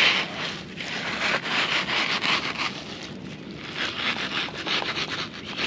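Irregular scraping and crackling rustle.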